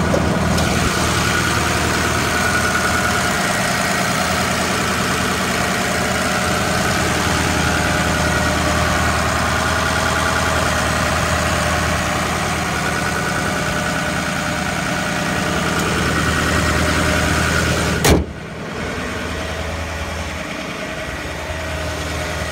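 Ford 6.0L Power Stroke V8 turbo-diesel idling steadily with the hood open. About 18 seconds in there is one sharp slam, the hood being shut, after which the engine sounds quieter and more muffled.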